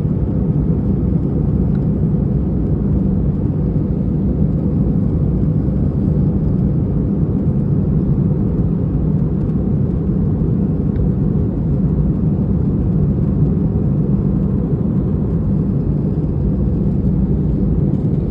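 Steady low rumble of a jet airliner heard from inside the passenger cabin in flight: engine and airflow noise, unchanging throughout.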